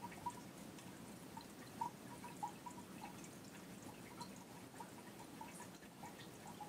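Water trickling steadily, with many small drips and bubbly plinks a few times a second over a soft running hiss.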